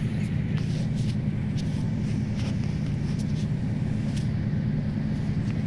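Passenger train running at speed: a steady low rumble with a few short clicks scattered through it.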